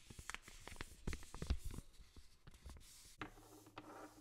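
Handling noises: a quick run of small clicks and taps with a few heavier low knocks, from hands working a thin plastic spatula among glass beakers and herb jars. About three seconds in, a longer rustle lasting about a second.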